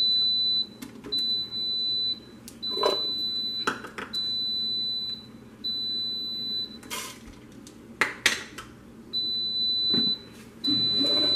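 Cuisinart compact bread machine sounding its add-ingredient alert during the second knead: a high, steady beep about a second long, repeated over and over with a short pause in the middle. A few sharp knocks and clatters come as the lid is opened and the cheese is tipped in.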